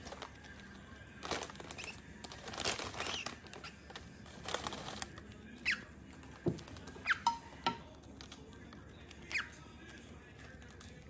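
Thin plastic bag crinkling and rustling in short bursts as a cockatiel pushes its beak inside to peck at crackers. A few short, falling squeaks come through in the second half.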